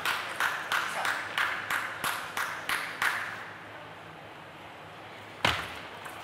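Spectators clapping in an even rhythm, about three claps a second, dying away in a large hall after about three seconds. A single sharp knock sounds near the end.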